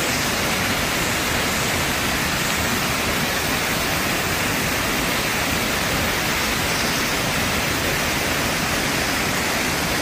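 Small waterfall cascading over boulders: a steady, even rush of water.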